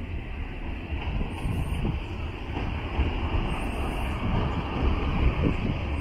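Class 37 diesel locomotives with English Electric V12 engines approaching at low speed, a deep engine rumble getting gradually louder as they draw near.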